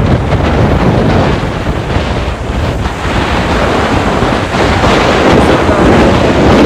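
Loud wind buffeting the microphone of a camera carried on a moving scooter: a steady, deep rushing noise.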